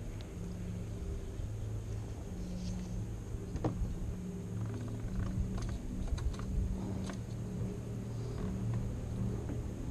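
A steady low hum like a small motor, with scattered light clicks and knocks over it, the sharpest about four seconds in.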